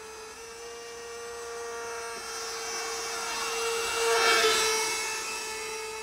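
The whine of a model plane's GWS 40 mm brushed electric ducted fan in flight, holding a steady pitch. It grows louder to a peak about four seconds in as the plane passes close, then fades.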